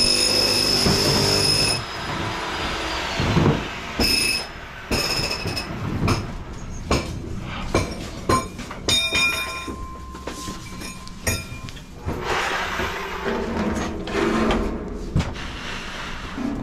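A motor's steady high whine cuts off about two seconds in and winds down in pitch. It is followed by irregular metallic clanks, knocks and short ringing of metal parts and fittings being handled.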